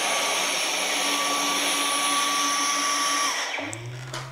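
Dyson V11 cordless stick vacuum running with a steady whine as it is pushed over the floor. A little over three seconds in it is switched off and the motor winds down, leaving a fainter low hum.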